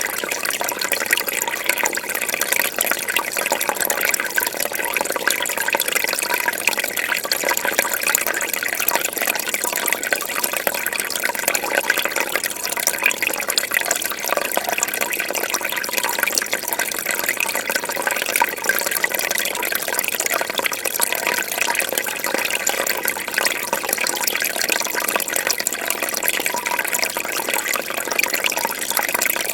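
Fish tank water bubbling steadily: a dense, continuous patter of small bubbles and splashes with no pauses.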